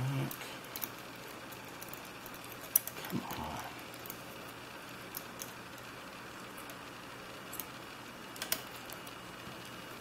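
Faint, scattered metallic clicks and ticks of a lock pick working the pins of a CISA 220/50 brass padlock under tension, with one sharper click a little under 3 s in.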